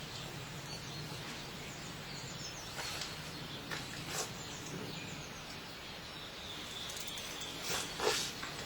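Outdoor ambience with a steady low hum and faint bird chirps. A few short, sharp sounds stand out, the loudest two close together near the end.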